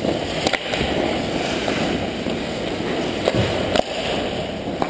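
Ice hockey skates scraping and carving on the rink ice, with a few sharp clacks of sticks and puck: one about half a second in, two close together past the three-second mark, and one near the end.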